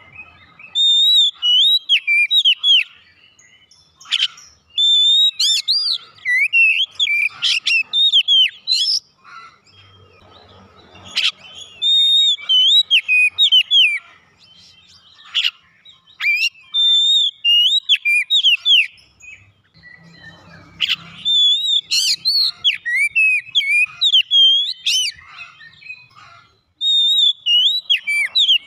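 Oriental magpie-robin singing loud, varied whistled phrases of quick rising and falling notes. It sings in runs of a few seconds separated by short pauses.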